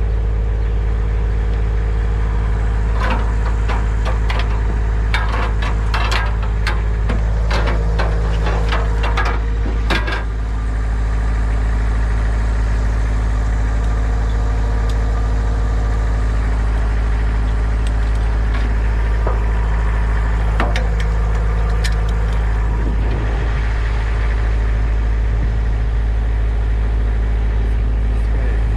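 An engine idling steadily with a deep, constant hum. A run of sharp knocks and clatter comes between about three and ten seconds in, with a few more later.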